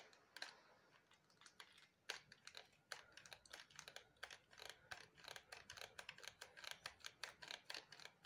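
Faint, quick, irregular clicking from a hot glue gun's trigger and feed mechanism as glue is squeezed out. The clicks are sparse at first and come thicker from about three seconds in.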